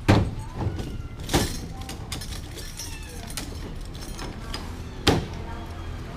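Sharp knocks and clatters: a loud one right at the start, another about a second and a half in and a third about five seconds in, over a steady low hum.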